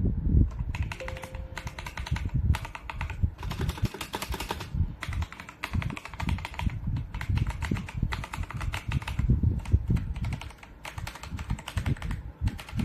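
Fast typing on a ZIYOU K3 full-size mechanical keyboard with red linear switches and ABS keycaps: a dense, irregular run of key presses with a few short pauses.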